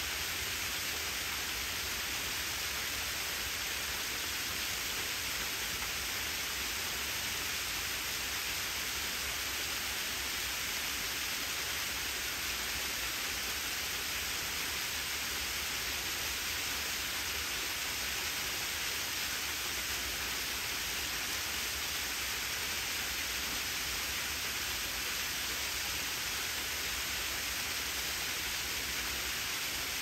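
Small ribbon waterfall, about 10 m high, falling and splashing down terraced rock ledges: a steady hiss of falling water with no breaks.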